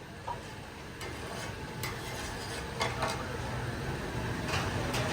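Metal utensils clinking and scraping against cookware, a few sharp clinks spread through, over a light background hiss. A low hum, like passing traffic, grows louder near the end.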